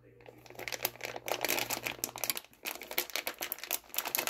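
Plastic bag of shredded cheese crinkling as hands work at its top edge to open it, in quick, irregular rustles.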